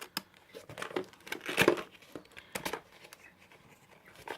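Product packaging being opened and handled: irregular crinkling, rustling and tearing with sharp clicks, loudest in a burst about a second and a half in.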